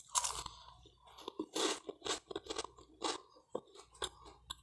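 A mouth crunching and chewing buttered French-bread toast close to the microphone: a run of short, irregular crisp crunches.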